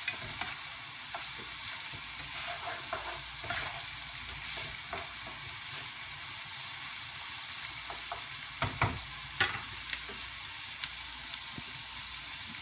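Food sizzling in oil in a frying pan as a utensil stirs it, with a few sharp clicks of the utensil against the pan about nine seconds in.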